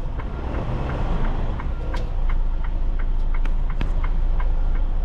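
Semi truck's diesel engine running under a heavy low rumble as the truck is manoeuvred, getting a little louder about two seconds in. A regular light ticking runs over it.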